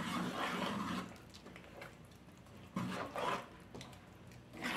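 Steel ladle stirring a thick dal-and-greens sambar in an aluminium pot: louder strokes in the first second, then a few short ones later.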